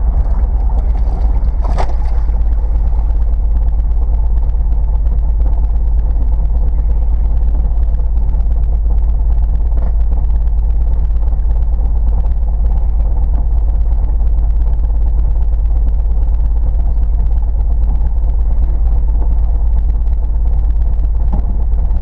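First-generation Subaru Forester's flat-four engine running steadily, heard from inside the cab, with a brief knock about two seconds in. The engine is firing on only two of its four cylinders after a failed coil pack.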